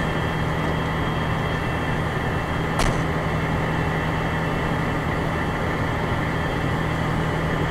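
Fire engine's engine running steadily with a low, even drone, heard from inside the cab. One sharp click about three seconds in.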